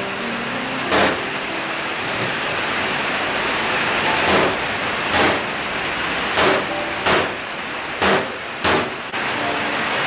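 Meat cleaver chopping a whole raw chicken on a wooden chopping board: about seven heavy chops at uneven intervals, over a steady rushing hiss.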